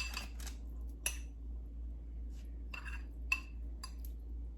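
Light clinks and taps of dishes and utensils, about eight scattered strikes with a brief ring, as rolled taquitos are laid out. A low steady hum runs underneath.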